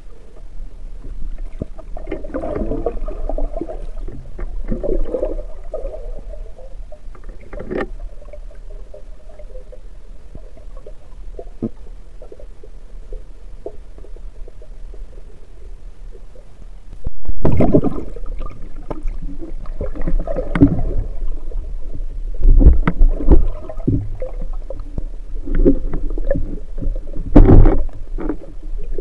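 Underwater sound through a submerged camera on a band-powered speargun: muffled low rumbling and soft knocks of water and handling. About 17 seconds in there is a sudden loud thump as the speargun fires, followed by several heavy knocks and rumbles as the speared fish struggles on the shaft.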